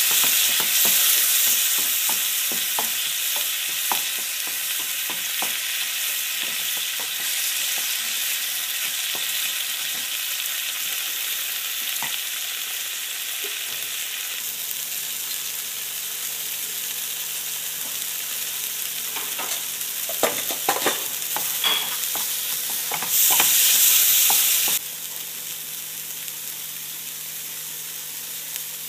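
Onion, tomato and spice masala sizzling in oil in a nonstick frying pan while a spatula stirs it, scraping and knocking against the pan in quick strokes through the first half and a few more times later. A louder spell of sizzling comes about two thirds of the way through.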